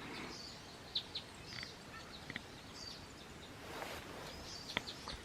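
A flock of small songbirds, finches among them, giving short high chirps and call notes, scattered here and there.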